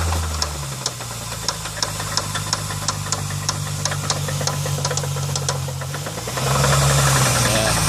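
2000 Chrysler 300M's 3.5-litre V6 running at about 1,000 rpm with a sharp knock repeating a few times a second, then revved higher about six seconds in. The knock comes from inside the engine, which the owner suspects is rod knock.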